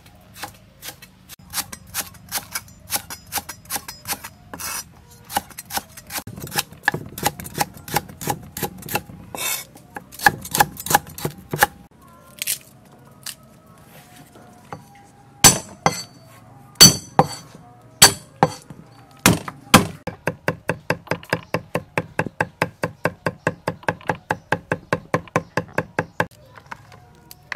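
Cleaver chopping on a thick wooden chopping block. Uneven slicing strokes come first, then a few heavy whacks a little past the middle. It ends in rapid, even mincing of garlic at about six strokes a second, stopping shortly before the end.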